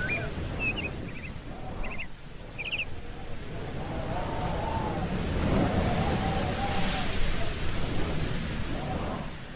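Outdoor nature ambience: a steady low rushing background with short high bird chirps through the first three seconds and a few longer, lower calls that rise and fall.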